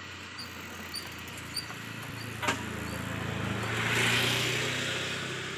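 A motor vehicle passing on the street: its engine hum grows, swells to its loudest about four seconds in, then fades. A single sharp click about two and a half seconds in.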